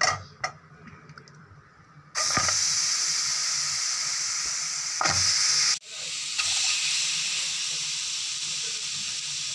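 Marinated chicken drumsticks sizzling in a hot aluminium pan. The sizzle starts suddenly about two seconds in as the pieces go into the pan, then carries on steadily.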